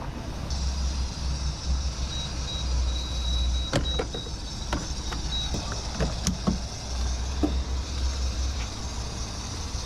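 2019 Shelby GT350's 5.2-litre flat-plane-crank V8 running at a steady low drone while driving, with a band of road and wind hiss above it. A few sharp clicks or knocks come near the middle.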